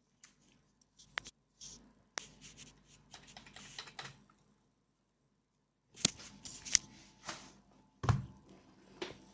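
Handling noises: sharp clicks and scraping, in two bursts separated by a pause of about a second and a half.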